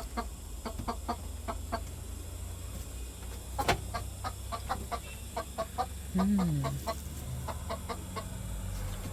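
Chickens clucking: a run of short, clipped clucks through the whole stretch, with a sharp knock about three and a half seconds in and a low falling sound about six seconds in.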